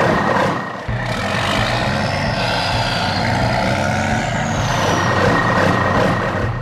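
Heavy truck engine running steadily, a low rumble with a brief dip just under a second in.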